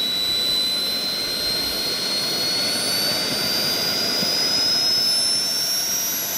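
Small turbojet (microturbine) running with a piercing whine that climbs slowly and steadily in pitch as the turbine spools up, over a steady rush of air and exhaust.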